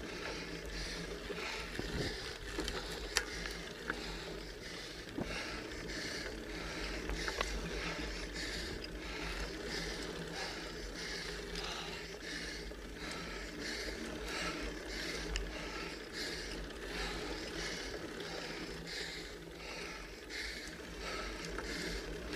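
Bicycle being pedalled slowly up a steep grade in a low gear: a rhythmic noise about twice a second from the pedal strokes and the rider's hard effort, over a low rumble of wind and road on the microphone, with a few sharp clicks.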